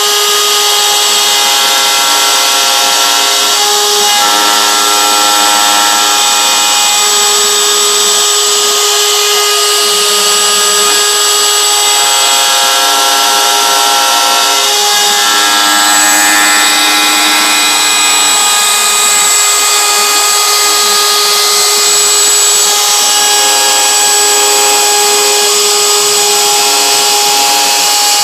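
CNC router spindle running with a steady high whine as its bit cuts a star groove into a wooden board, over a continuous hiss of cutting. Lower machine tones underneath change pitch every few seconds.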